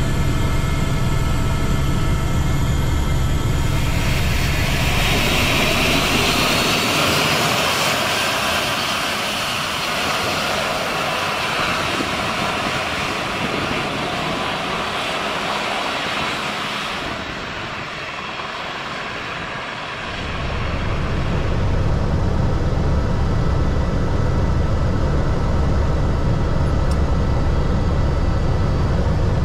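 Helicopter turbine and rotor noise heard from inside the cockpit, a steady deep rumble. From about 4 s to 20 s it gives way to the high, hissing whine of aircraft turbines on the airfield, then the low cockpit rumble returns.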